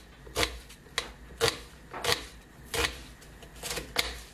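Kitchen knife slicing a white onion on a wooden cutting board: about seven crisp cuts, each ending in a knock of the blade on the board, roughly one every half second.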